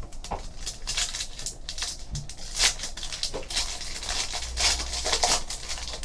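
Foil trading-card pack wrapper crinkling and tearing as a pack is opened, with irregular crackles and the cards being handled.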